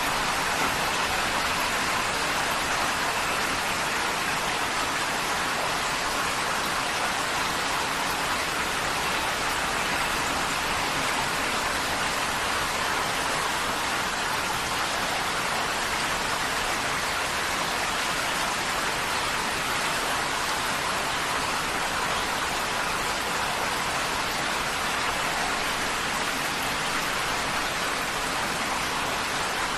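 Heavy rain falling steadily on a tin roof, an even hiss of drops with no breaks.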